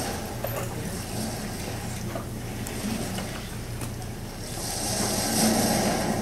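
Steady room noise of an auditorium: a low hum under an even hiss, swelling louder about four and a half seconds in.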